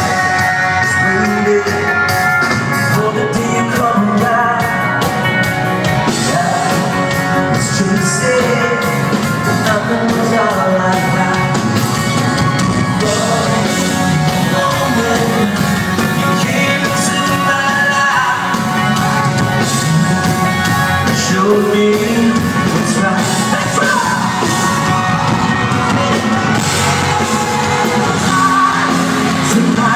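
Rock band playing live, electric guitars and bass with a male lead singer, loud and steady, recorded from within the audience on a phone's microphone.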